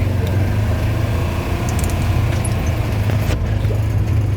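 A vehicle being driven: a steady, loud low rumble of engine and road noise.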